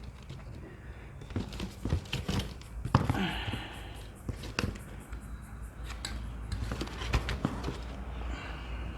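Light handling noises: scattered knocks, clicks and scrapes as a piece of cardboard is set against a motorcycle tyre to shield it from chain-lube spray.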